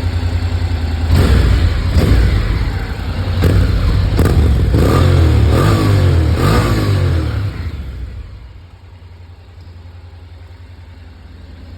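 Honda NC750X DCT parallel-twin engine revved in a series of quick throttle blips, its pitch falling after each. About eight seconds in it drops back to a steady idle.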